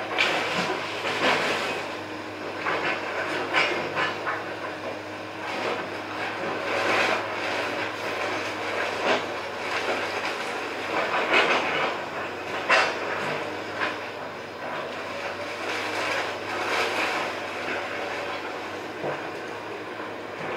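Komatsu hydraulic excavator running steadily as it tears down a wood-frame house, with repeated irregular cracks and crunches of splintering timber and falling debris.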